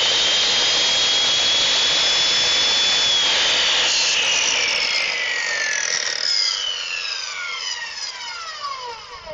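Black & Decker 10-inch compound miter saw running free at full speed with a high whine. About three seconds in it is switched off, and the blade and motor spin down with a falling whine that fades over about six seconds.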